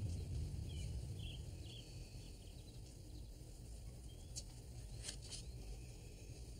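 Faint, short bird chirps over a steady low hum, with a few soft clicks or rustles a little past the middle.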